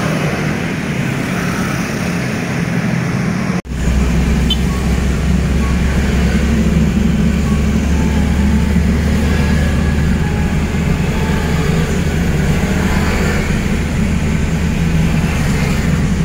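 Steady road traffic noise from passing vehicles. It drops out for an instant about four seconds in, then comes back with a heavier low rumble.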